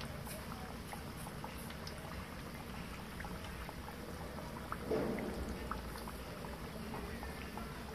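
Hot oil sizzling and bubbling around a breaded embutido roll shallow-frying in a pan, with scattered small pops. A short, louder sound stands out about five seconds in.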